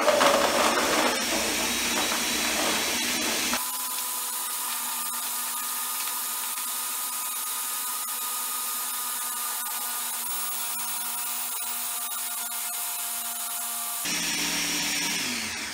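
Countertop blender motor running at full speed, crushing frozen strawberries and kale in a pitcher. For the first three and a half seconds it is a rough, grinding roar; then it settles into a smoother, steady whine as the contents liquefy. Near the end it is switched off and the motor winds down, falling in pitch.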